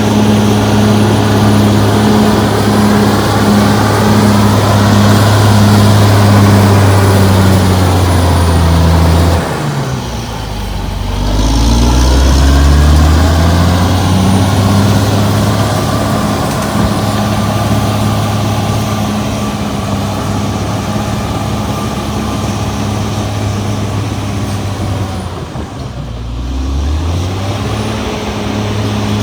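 Caterpillar D6R XL bulldozer's diesel engine running steadily, its revs dropping sharply about a third of the way in and again near the end, then climbing back up each time.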